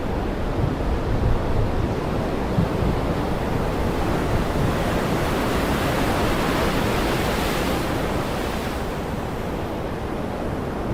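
Heavy rain pouring steadily as a dense, even hiss with a low rumble underneath. It swells brighter partway through and eases near the end.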